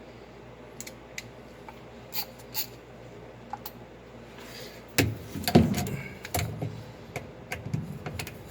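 Scattered sharp clicks, then from about five seconds in a run of louder clunks and rattles: hand tools and metal parts being handled while taking apart a washing machine.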